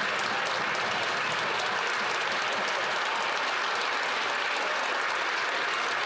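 Members of Parliament applauding in the House of Commons chamber: many hands clapping at once in a steady, dense patter.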